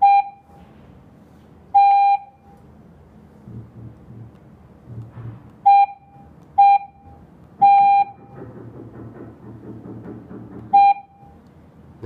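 Electronic beeps from a G90B alarm panel's touch keypad: six short tones of the same pitch, two of them longer (about two seconds in and near eight seconds), as keys are pressed with the panel in learning mode registering a door sensor.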